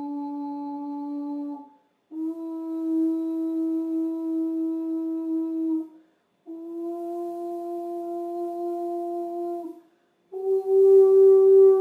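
Steady pure tones driving a sand-covered Chladni plate, each note held for a few seconds and broken off by a brief silence. There are four notes, stepping up in pitch, and the last one, starting a little past ten seconds, is the loudest.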